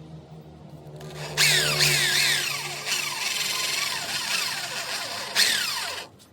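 Power tool running: a low motor hum, then from about a second and a half in a loud working noise with repeated falling whines, cutting off suddenly near the end.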